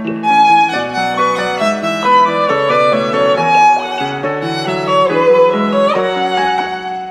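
Background music with a violin playing a melody, the notes changing every fraction of a second and easing off a little near the end.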